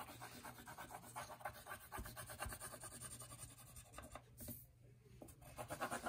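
Purple oil pastel scratching rapidly back and forth on paper in quick short strokes, faint, with a brief pause a little past the middle.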